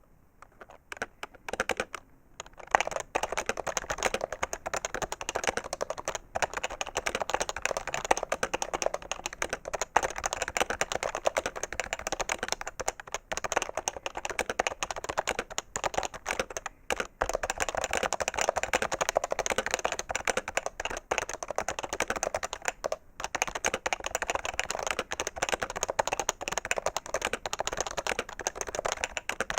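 Fast, continuous typing on a PFU HHKB Professional 2 keyboard with Topre capacitive switches: a dense stream of key clacks, sparse for the first couple of seconds, with a brief pause about 23 seconds in.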